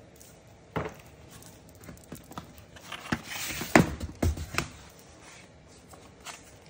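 Cardboard boxes being handled: a few knocks and bumps, with a short scraping slide as a flat cardboard box is pulled out of a large shipping carton, loudest just before and after the middle.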